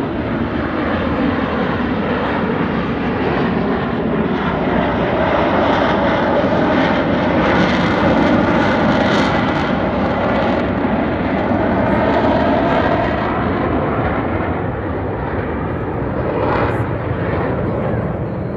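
Jet noise from the Frecce Tricolori's Aermacchi MB-339 jet trainers flying past in formation. It swells to its loudest about halfway through and then eases off.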